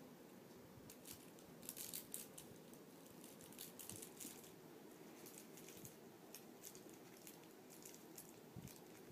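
Faint rustling and scattered small clicks of a puppy playing on soft bedding and mouthing a hanging toy, busiest about two and four seconds in.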